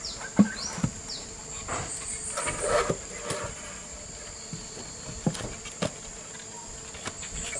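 Wooden stingless-bee hive boxes knocking as one box is stacked on another and the wooden lid is set on: several separate knocks, the sharpest about half a second in. Under them runs a steady high insect trill.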